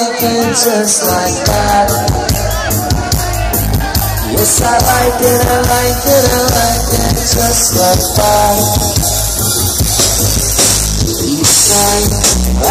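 Reggae band playing live, heard from within the crowd; the bass and drums come in right at the start and carry on under guitar and keyboard lines.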